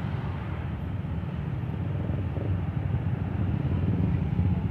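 Bus engine running with a low, steady engine noise that grows louder toward the end as it comes closer.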